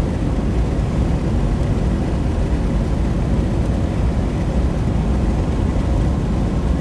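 Steady rumble of a car driving along a highway, road and engine noise heard from inside the cabin.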